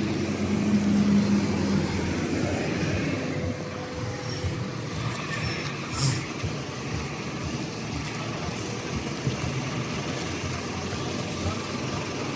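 A vehicle on the move: a steady motor hum for the first two seconds, then an even rolling road noise, with a single sharp knock about six seconds in.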